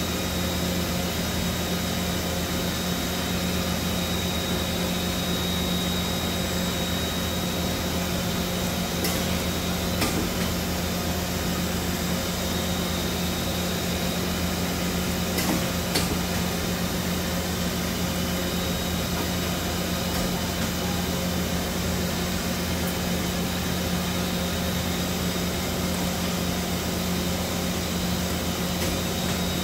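Okuma Multus B400II multitasking lathe running under power while its milling head swivels on the B axis: a steady machine hum with a thin high whine. A few light clicks come in pairs, about a third of the way in and again about halfway.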